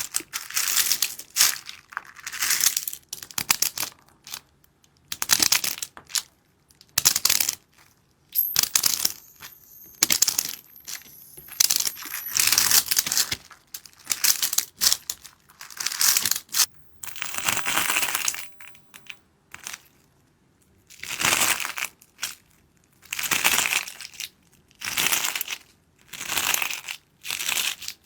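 Water beads (hydrogel beads) being crushed and squished in repeated bursts, each about a second long, with short near-silent pauses between.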